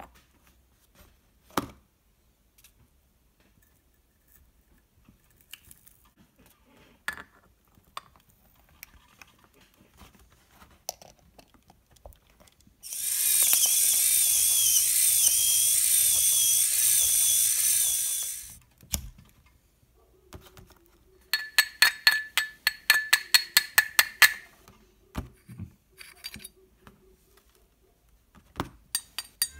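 Homemade electric herb grinder: the small electric motor in its housing spins the metal grinder's teeth for about six seconds, a steady high whir with a wavering tone. Light clicks of the metal grinder being handled come before it, and afterwards a quick run of sharp metallic clicks, about five a second for three seconds.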